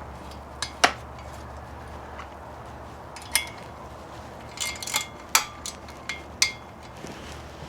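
Metal tools clinking and clanking as they are handled and set down: about eight irregular sharp knocks, some with a brief metallic ring, the loudest about a second in and a cluster around five seconds in. A steady low hum runs underneath.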